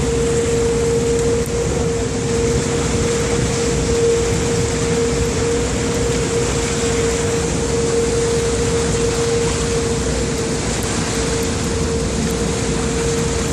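River tour boat's engine running steadily, a constant hum over a wash of noise, heard on board.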